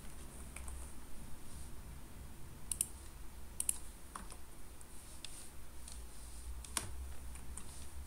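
A few scattered, sharp computer keyboard and mouse clicks over a low steady hum.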